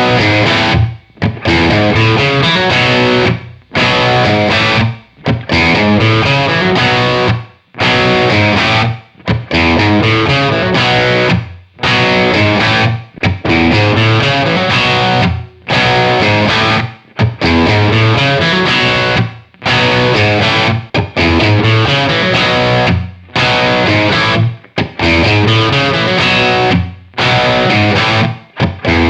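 Electric guitar, a Gibson Custom Shop Les Paul with PAF-style humbucker pickups, played through an amp in over a dozen short phrases of a second or two each, with brief breaks between them.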